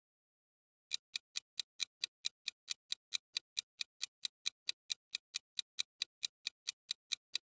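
Clock-ticking sound effect of a quiz countdown timer: even, sharp ticks at about four to five a second, starting about a second in.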